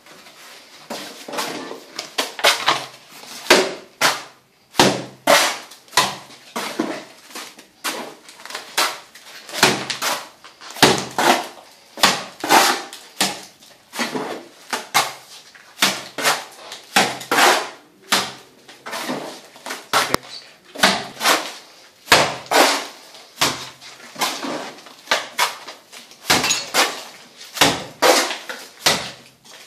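A mason's trowel throwing cement mortar onto a hollow clay brick wall to render it, a wet slap about once a second, each throw sudden with a short tail.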